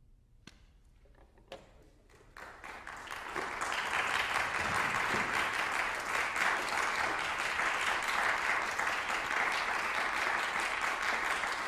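Audience applauding at the end of a piece: after a quiet moment with a couple of single claps, the clapping swells about two seconds in and settles into steady full applause.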